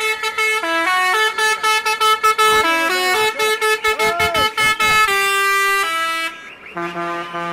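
Musical air horns on a passing parade vehicle playing a tune of quick notes at changing pitches, then a few longer held notes, stopping about six seconds in. A lower, steadier horn tone sounds near the end.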